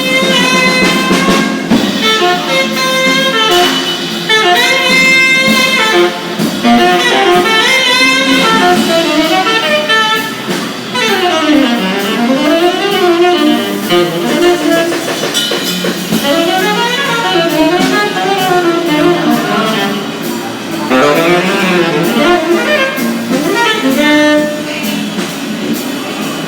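Saxophone playing a jazz melody, with swooping pitch slides around the middle.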